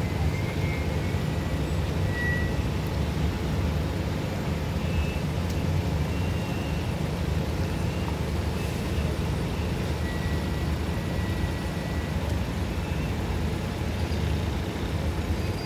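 Steady low engine rumble from vehicles driving slowly onto a river car ferry, with a few faint, short high-pitched tones now and then.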